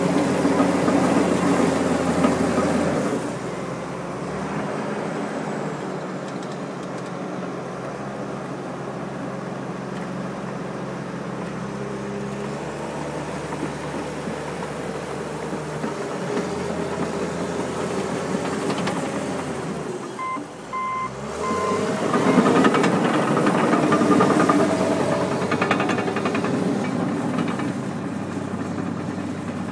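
John Deere 750J bulldozer's diesel engine working under load. It eases off about three seconds in, drops briefly near the two-thirds mark while a reverse alarm beeps three times as the dozer changes direction, then pulls harder again.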